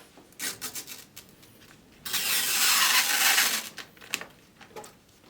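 Protective plastic film being peeled off a PC case panel: a few light handling clicks, then a loud ripping hiss about two seconds in that lasts about a second and a half as the film comes away.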